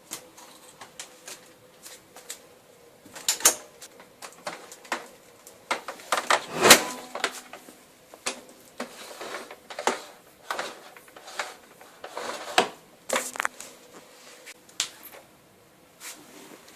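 Irregular clicks, knocks and clatter of a Panasonic MC-E7301 vacuum cleaner being handled, its parts knocking together, with no motor running. The loudest knocks come a few seconds in, near the middle, and again about three-quarters of the way through.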